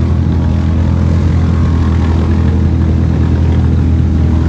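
ATV engine held at steady high revs while its wheels spin and churn through deep muddy water; the quad is bogged down.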